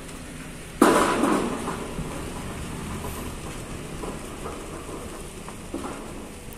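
Sheet-steel folding door leaves being pulled along by hand: a sharp metal clang about a second in, then a long rattling rumble as the hinged leaves move, with a few light knocks.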